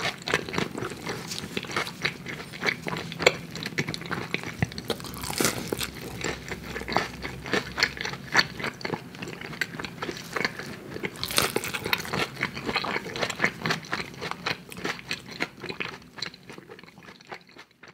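Close-miked crunching of crisp food being bitten and chewed, many irregular crisp crunches. The sound fades away over the last two seconds.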